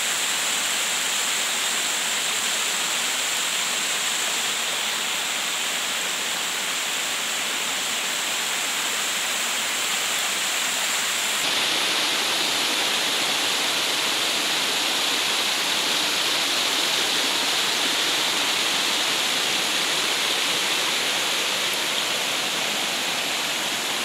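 Waterfall in full flow: water rushing and splashing down a rocky cascade as a steady, loud rush of noise. Its tone shifts a little about halfway through.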